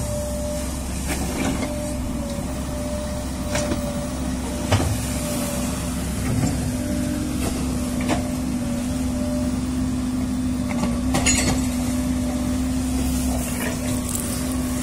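Crawler excavator's diesel engine running steadily with a constant hum, working its boom and bucket in the river to pull its pontoon barge along. A few short knocks come through now and then.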